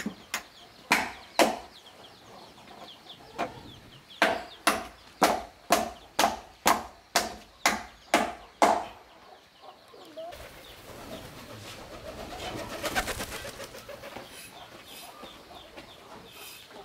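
A run of about ten sharp knocks, roughly two a second, with a few scattered knocks before it; after that the knocks stop and a steadier noisy sound follows.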